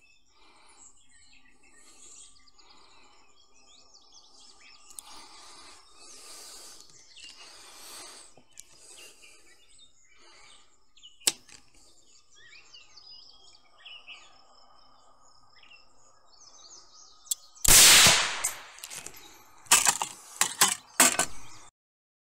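Faint bird chirps over outdoor background noise, then a single loud rifle shot from a BRD Gun Works Vertex Pro in 6mm ARC about 18 seconds in: a cold-bore verification shot to check the zero. Several sharp knocks follow over the next few seconds before the sound cuts off.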